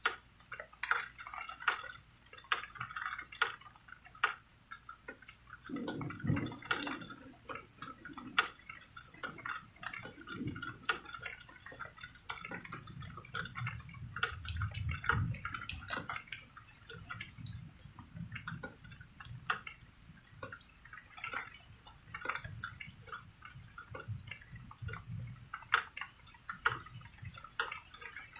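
Rain dripping, heard as many irregular sharp drops and taps. Low rumbles of distant thunder swell up about six seconds in, again for several seconds from about thirteen seconds, and once more near the end.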